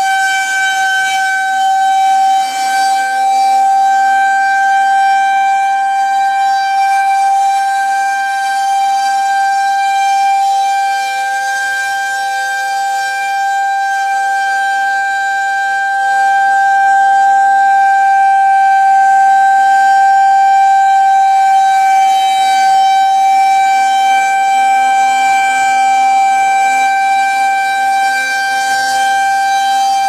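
Federal Signal 2001-130 electromechanical rotating siren sounding a steady single-pitch tone. It grows louder about halfway through as the turning horn swings toward the listener.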